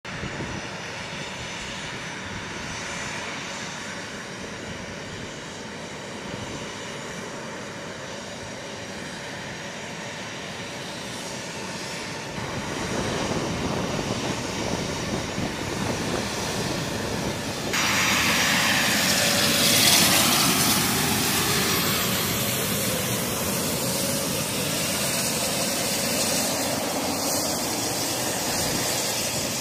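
A-10C Thunderbolt II jets taxiing, their two General Electric TF34 turbofan engines giving a steady rushing noise with a faint whine. The sound steps louder about twelve seconds in and again near eighteen seconds, where a brighter hiss comes in as a jet draws close.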